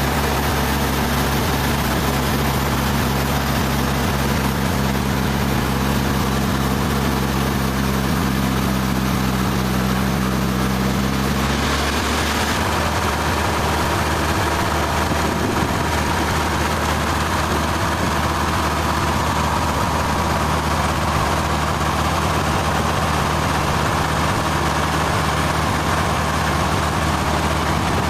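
Sawmill machinery running steadily. About twelve seconds in, the low hum changes and a steady higher tone comes in.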